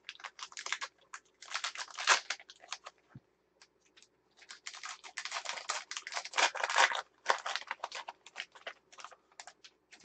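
Foil wrapper of a baseball card pack crinkling and tearing in bursts as it is opened, with sparser light clicks near the end as the cards come out.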